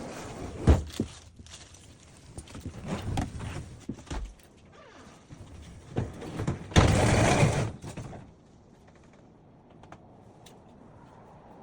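Scattered knocks and thuds of things being handled, with a louder scraping rush lasting just under a second about seven seconds in, then quieter with a few faint clicks.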